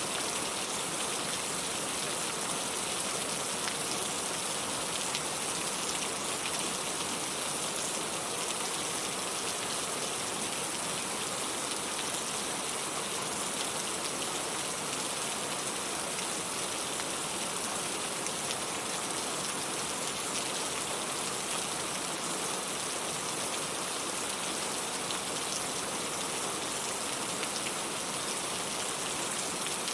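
Steady rain falling: an even hiss that does not change, with fine ticks of single drops scattered through it.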